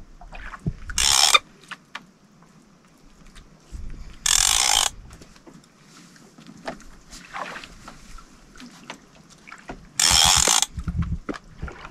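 Heavy conventional fishing reel, an Accurate Valiant 600NN, giving three short ratcheting mechanical bursts about a second, four seconds and ten seconds in, while a large fish pulls hard on the line.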